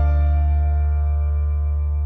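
Calm background music: sustained keyboard chords over a steady low bass note.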